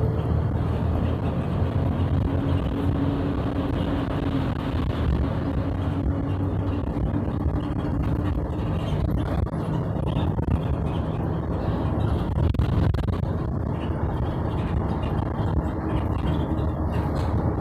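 Steady engine and road noise of a car on the move, a constant low rumble with a faint humming tone.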